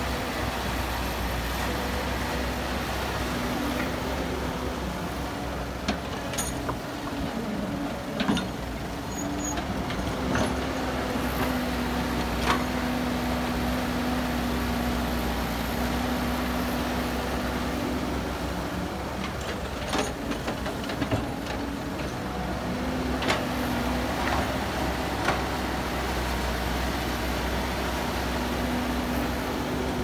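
Caterpillar tracked excavator's diesel engine running steadily as it works, with a humming tone that steps up and down in pitch and scattered sharp knocks and clanks.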